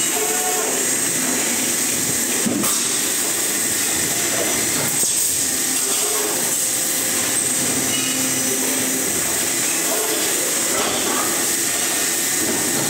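Injection moulding line with an in-mould labelling robot running: a steady, loud machine noise with a hiss, a constant high whine, and a sharp click about two and a half seconds in.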